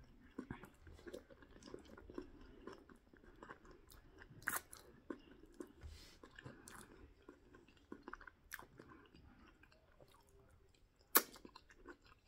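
A person chewing fried ripe plantain with bean stew close to the microphone: soft, wet mouth sounds with small irregular clicks, and a few sharper clicks now and then, the loudest near the end.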